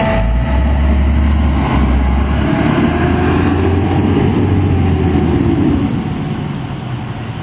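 Fire engine's diesel engine running close by as the truck pulls up, a deep rumble that eases off after about six seconds.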